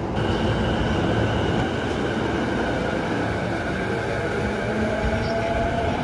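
Saikyo Line electric train moving at the platform: a steady rumble of wheels on rail under a steady high electric whine, with a tone that rises in pitch over the last couple of seconds.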